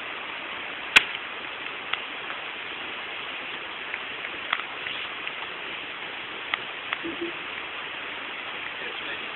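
Steady outdoor background hiss picked up by a mobile phone camera's microphone, with a few sharp clicks, the loudest about a second in.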